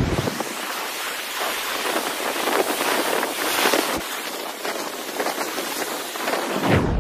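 Rough sea breaking over rocks and against a stone seawall: a continuous hissing wash of churning surf and foam, with little low rumble.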